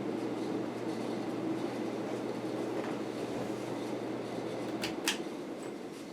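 1985 Casablanca Delta II ceiling fan running on high speed: a steady rush of air being moved, with a low motor hum. The air noise drowns out its rough bearings. Near the end, two sharp clicks come in quick succession, the motor hum stops, and the rushing sound starts to fade.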